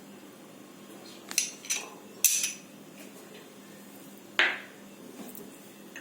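A spoon knocking and clinking against a bowl a few times as chopped tomatoes are tipped in; the last knock, about four seconds in, rings briefly.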